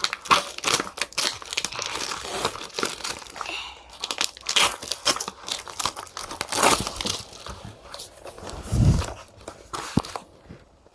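Toy packaging being torn open and crinkled by hand: dense, irregular crackling and ripping, with a dull thump about nine seconds in.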